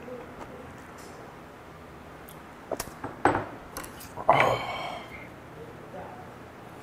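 Chopsticks clicking lightly against plates and dipping dishes as food is picked up, a few sharp ticks between about two and four seconds in, followed by a short louder burst of eating noise.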